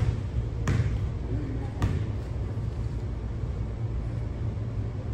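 A basketball bouncing on a hardwood gym floor a few times in the first two seconds, over a steady low rumble of the hall with faint crowd voices.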